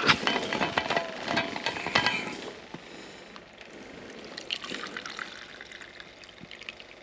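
Short knocks and clinks of handling for the first couple of seconds, then coffee pouring steadily from a thermos into its cup.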